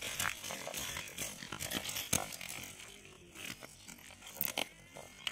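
Freshly caught snakehead fish flopping and thrashing on dry twigs and leaf litter: irregular crackling rustles and slaps, busiest in the first half and sparser towards the end.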